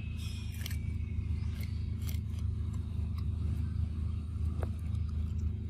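A pig-tailed macaque chewing corn on the cob: a handful of short crisp clicks and crunches, scattered irregularly, over a steady low rumble.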